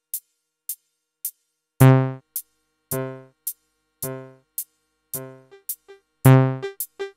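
Strymon Magneto tape-echo module in Shift mode, whose four tape loops play back at different speeds and so change the pitch of the echoes, repeating an electronic drum pattern. Short high ticks come about every half second. A loud, pitched, plucked tone about two seconds in and again about six seconds in is followed each time by several fading repeats.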